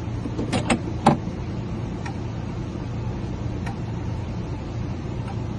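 Steady low hum, with three sharp metallic clicks about half a second to a second in and a few faint ticks after. The clicks fit a key blank being turned over and clamped in a key-cutting machine to cut its second side.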